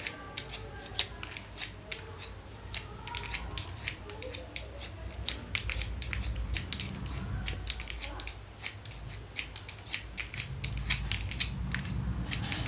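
Pencil being sharpened by hand: a fast run of sharp clicks and snips, about three or four a second, over a low background rumble.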